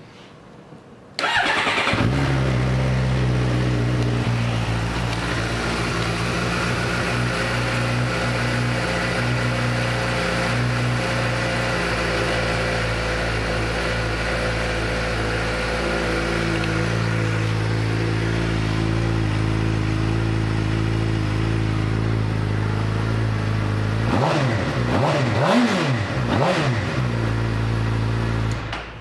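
2013 Suzuki GSX-R600's inline-four engine starting about a second in and idling steadily. Near the end it is revved up and down a few times, then switched off.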